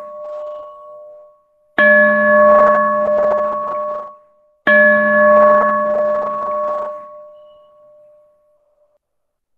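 A metal bell rung in three bouts: one dying away at the start, then two more that start sharply about two and five seconds in, each rattling for about two seconds before ringing down. The last ring fades out well before the end.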